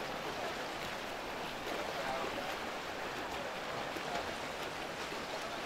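Steady splashing of swimmers' freestyle strokes in a pool, an even wash of water noise.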